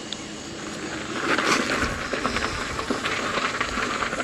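Folding electric bike setting off: from about a second in, a steady rushing hiss of the ride comes up, with many light clicks and rattles.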